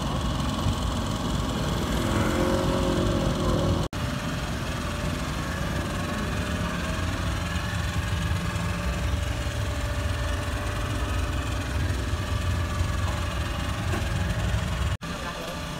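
A motor engine idling steadily, a low rumble, cut by two brief sudden gaps about four seconds in and near the end.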